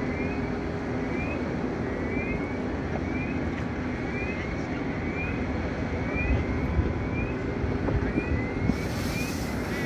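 Steady engine rumble, with a short rising chirp repeating about every three-quarters of a second. Near the end a hiss sets in, water spraying from a fire hose onto the burning car.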